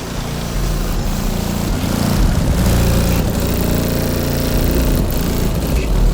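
Car audio system with four 15-inch Pride subwoofers in a sixth-order box playing bass at very high volume. The deep bass overloads into a distorted, buzzing rumble that gets louder about two seconds in.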